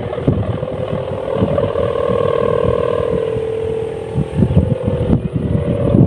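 Sendaren, the bow-and-string hummer on a kite, humming in the wind: a wavering drone that swells through the middle, fades about four seconds in and comes back near the end. Wind buffets the microphone throughout.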